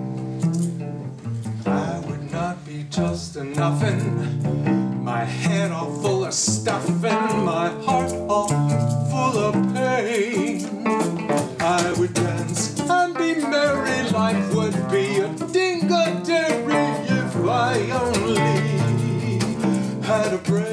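Solo cello played without a bow, its strings plucked and strummed like a guitar in a quick, continuous run of notes and chords.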